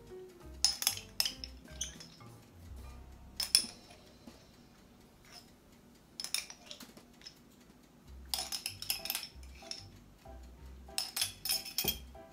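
A metal spoon clinking against a small glass jar and a mixing bowl in several short bursts of clinks, as minced garlic is scooped from the jar and tapped off into the dip mixture.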